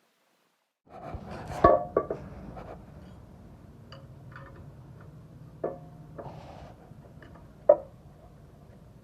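Metal tools or engine parts knocking against metal: several sharp clinks, each ringing briefly, over a low steady hum. The sound starts after about a second of silence; the loudest clinks come about two seconds in and near the end.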